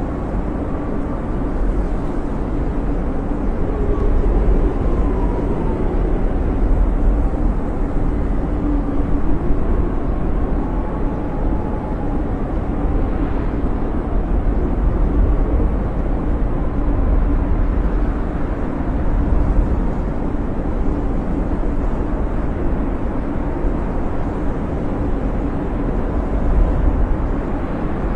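Blizzard wind blowing hard, a steady deep rumble with faint whistling howls that slowly rise and fall in pitch.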